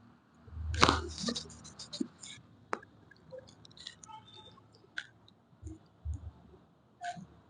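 A quick run of cracking pops with a low thud about a second in, then scattered fainter clicks and two soft low thumps: spinal joints cavitating under a chiropractic adjustment thrust.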